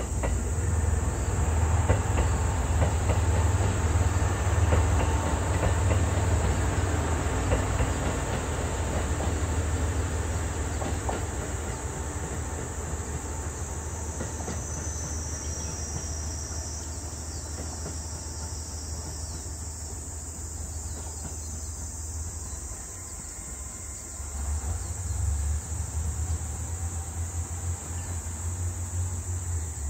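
A limited express diesel train (JR West KiHa 189 series) running slowly over a viaduct. Its engine rumble and wheel clatter are loudest at first and fade as it pulls away, with insects chirping high above.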